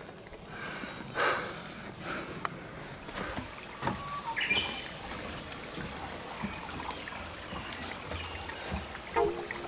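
Quiet forest ambience with scattered soft footsteps on a wooden boardwalk and a brief bird chirp about four and a half seconds in. Music starts near the end.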